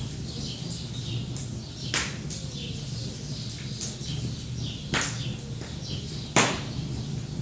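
Wood fire crackling, with three sharp pops about two, five and six and a half seconds in, the last the loudest, over a steady low rumble. Small birds chirp and tweet throughout.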